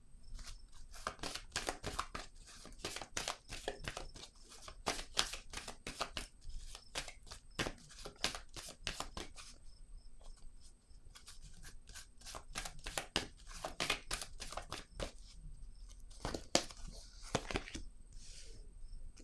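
A deck of tarot cards being shuffled by hand: a long run of quick card clicks and slaps, with a few brief pauses.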